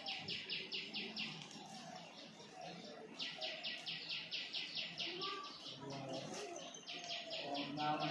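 A bird's rapid trilling call, about nine short high notes a second, coming in three bouts of one to two seconds, over faint low voices.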